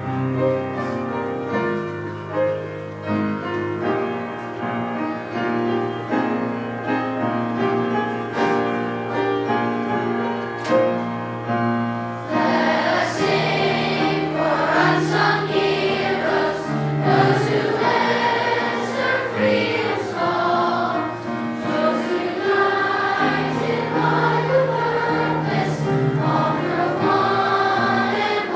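A children's choir singing with instrumental accompaniment; about twelve seconds in, the voices grow fuller and louder.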